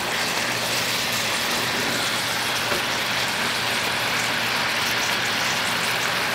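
Balsamic onion jam sizzling and bubbling steadily in a frying pan as it cooks down to a thick, caramelized glaze, stirred with a wooden spoon. A faint steady hum runs underneath.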